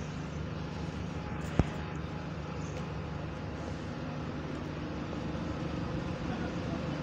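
Single-deck bus's diesel engine idling steadily at a stand, a low moany hum. A single sharp click about one and a half seconds in.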